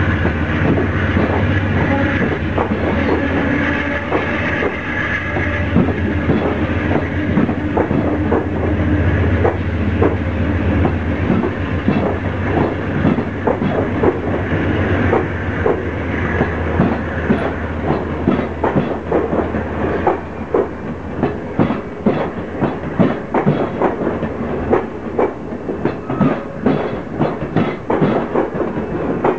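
Amtrak Superliner double-deck passenger cars rolling past on jointed track, their wheels clicking rhythmically over the rail joints. A steady low hum carries through about the first ten seconds. The clicks come quicker and stand out more toward the end as the train gathers speed.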